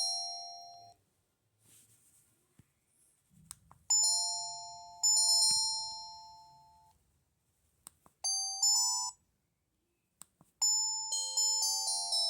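LG C1500 mobile phone's speaker playing its built-in ringtones one after another. A melody dies away about a second in. After a gap, a held two-note chime sounds twice, a short trill follows, and a new, quicker melody starts near the end. Faint clicks fall in the quiet gaps.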